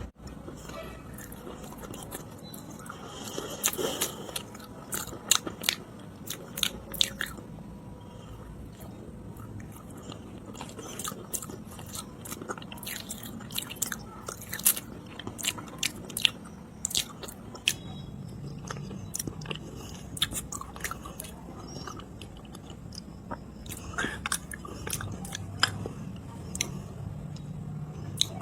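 Close-miked biting and chewing of Nakumatt edible clay: a long run of sharp, irregular crunches and clicks.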